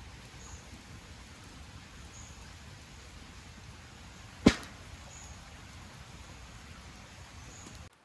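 A single sharp, loud crack about four and a half seconds in, over a steady low hiss. The sound drops out abruptly near the end.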